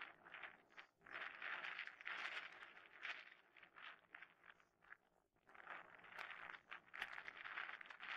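Faint, dense chatter of a flock of waterbirds calling together, swelling and fading every second or two.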